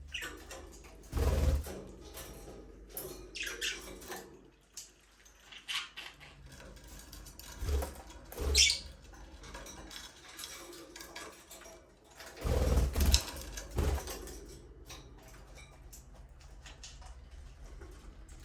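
Budgerigars in an aviary chirping intermittently. Several louder low thumps or flutters come in between, loudest about a second in and again around twelve to fourteen seconds.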